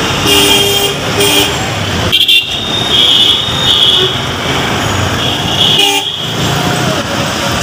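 Road traffic with vehicle horns honking again and again: about six short high-pitched honks over the steady noise of engines.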